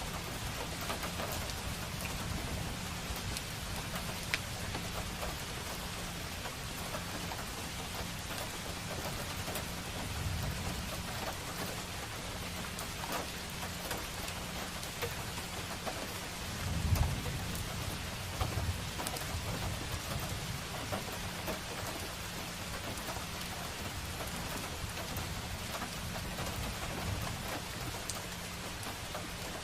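Steady rain falling on a street and hard surfaces, an even hiss with scattered drop ticks. A few brief low rumbles come through it, the loudest just past halfway, with a single sharp tick about four seconds in.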